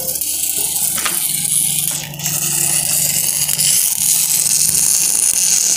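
Stick-welding arc on a P91 alloy-steel pipe joint, crackling and hissing steadily as the electrode burns, with a brief dip in the arc sound about two seconds in.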